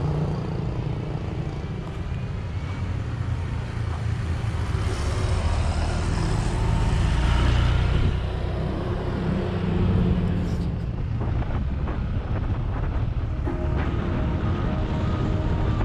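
Motor vehicle road noise: a steady low rumble with the hum of engines running close by, and a few brief clicks about two-thirds of the way through.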